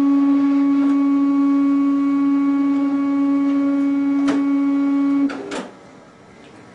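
Zebra ZXP Series 8 card printer running its roller-cleaning cycle with a cleaning card fed in: a loud, steady whine with a click about four seconds in. The whine cuts off with a short clatter a little past five seconds, and it is quieter after that.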